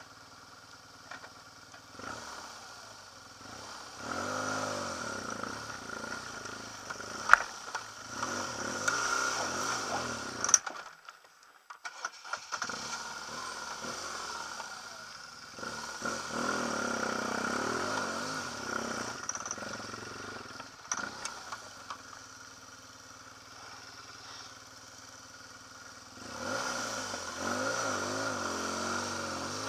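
BMW R1200 boxer-twin motorcycle engine revving up and easing off over and over as it picks its way up a rocky track, with a sharp knock about seven seconds in. The engine sound drops out for about a second and a half near the middle, then picks up again.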